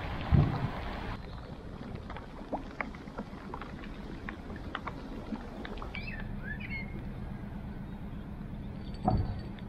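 Narrowboat engine running steadily at low revs as the boat moves slowly along the canal. A dull thud comes about half a second in and another near the end, and a few bird chirps sound around the middle.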